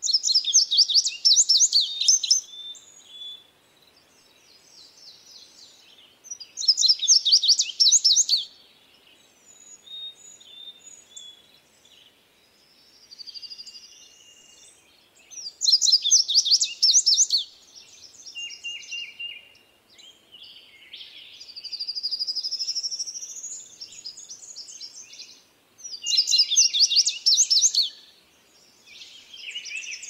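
Male indigo bunting singing: four loud bursts of rapid, high-pitched notes, each about two seconds long and coming every nine to ten seconds, with softer high phrases and a rising whistle in between.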